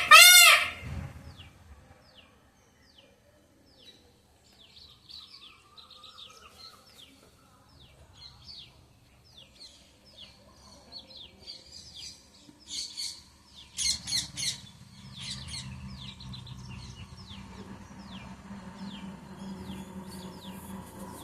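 An Indian peafowl finishes a run of loud, repeated calls in the first moment, then small birds chirp with many short, quick downward notes. From about two-thirds of the way through, a low steady hum rises underneath.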